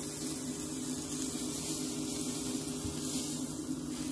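Pancakes sizzling steadily in a hot nonstick griddle pan, over the steady hum of an air fryer running.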